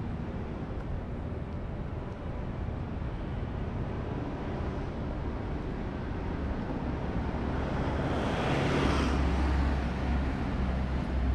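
Steady road-traffic rumble, with one vehicle passing close by about eight seconds in, swelling and fading over a couple of seconds.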